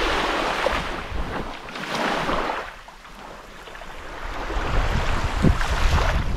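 Small waves washing up on a sandy beach, surging and receding, with a quieter lull about three seconds in before the next wash builds; wind rumbles on the microphone.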